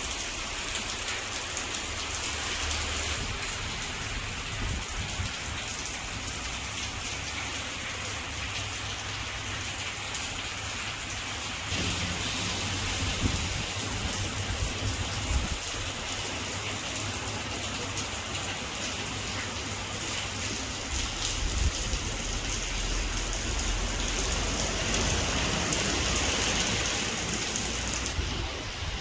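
Green CRF 3030 turbo electric fan running, its strong air flow making a steady rushing noise with a low rumble. The rush grows louder about twelve seconds in.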